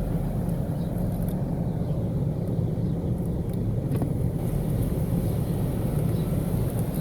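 Car engine running steadily, a low even rumble heard from inside the cabin.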